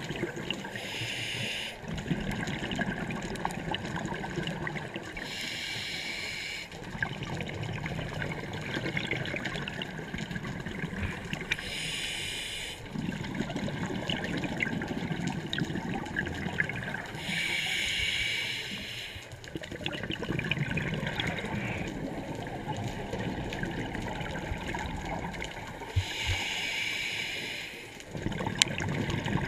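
Scuba diver breathing through a regulator underwater: a short hiss about every five to six seconds, five times in all, each followed by a longer low bubbling rumble.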